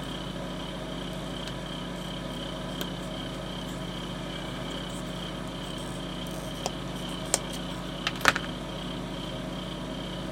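Steady background electrical hum, with a few light clicks and taps between about six and a half and eight and a half seconds in, the last the loudest, as a pair of pliers is handled and set down on a cutting mat.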